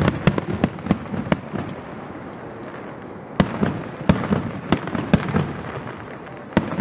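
Aerial fireworks display: shells bursting in quick runs of sharp bangs and crackle. There is a short lull from about one and a half to three and a half seconds in, then another run of reports, and more bangs near the end.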